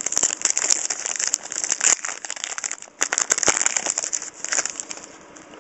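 Plastic-foil trading card pack wrapper crinkling as it is opened and handled, a dense run of crackles with a short lull about three seconds in, dying down near the end.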